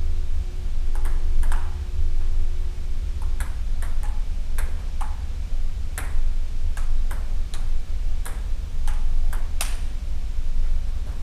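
Table-tennis rally: the celluloid ball clicking off the paddles and the table, about fifteen sharp taps at an uneven pace, the hardest hit near the end. A steady low rumble runs underneath.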